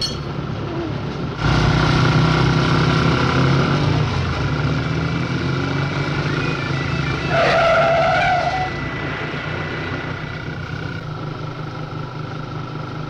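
Motorcycle engines running on the road, suddenly louder about a second and a half in. A brief wavering high squeal comes a little past halfway, and after it the engine sound eases off.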